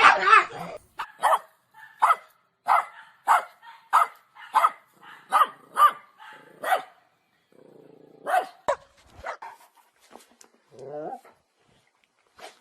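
Dog barking in a regular series of sharp barks, about one every half second, then a pause and a few more barks, and a short wavering whine near the end.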